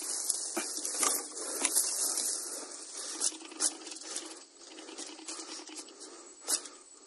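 Footsteps crunching through dry leaf litter and twigs: irregular crackles and sharp snaps, busiest in the first half and sparser later.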